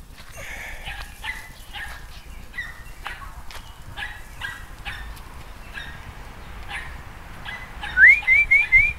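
Puppies yipping: many faint short high yips, then a quick run of five louder, rising yips about a second before the end.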